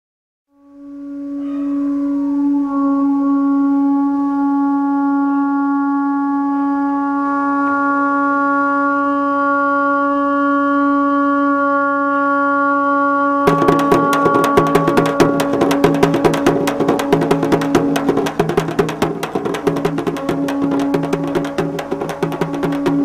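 Background film music: a sustained drone of several steady held notes, joined about halfway through by fast, dense drumming.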